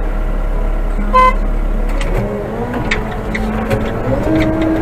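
Old Manitou telehandler's diesel engine running, with a short horn beep about a second in. Near the end the engine's pitch rises as it revs up.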